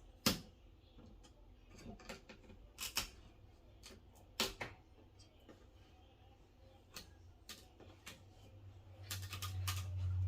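Scattered clicks and knocks of small parts being handled during disassembly of a flat-screen TV's back, with a quick run of clicks near the end. A low steady hum comes in and grows louder over the last couple of seconds.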